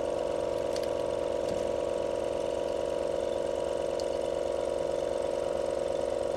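Steady mechanical drone of a running motor, with a fine rattling pulse, plus a few faint clicks from tweezers handling a small part.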